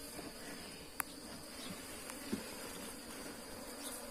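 Wild honeybees buzzing around their opened nest, with a couple of sharp clicks, about a second in and again near the middle.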